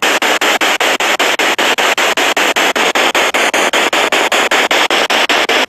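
Spirit box radio scanning through stations: loud static chopped by short dropouts about five times a second.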